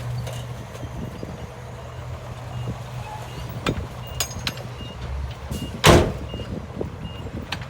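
Diesel earthmoving machinery running steadily, with scattered metallic clanks. A reverse alarm beeps about every three-quarters of a second from about a third of the way in, and there is one loud sharp burst of noise near the end.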